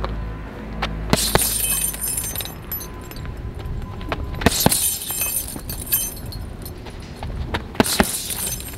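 Gloved punches landing on a hanging RDX heavy punch bag in three short flurries. After each set of thuds the bag's suspension chains jangle.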